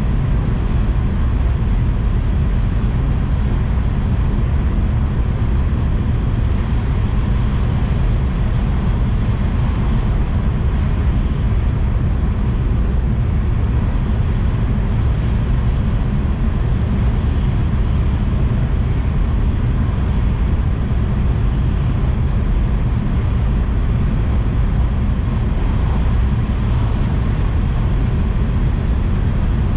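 Steady low rumble of a Tohoku Shinkansen train running at speed, heard from inside the passenger cabin. A faint high whine comes in about a third of the way through and fades out after the middle.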